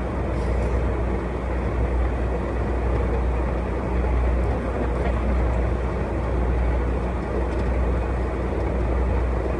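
Steady road and engine noise inside a car's cabin while cruising at highway speed: an even low rumble with tyre noise and no change throughout.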